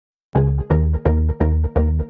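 Music with a heavy repeating bass note, pulsing about three times a second, starting about a third of a second in.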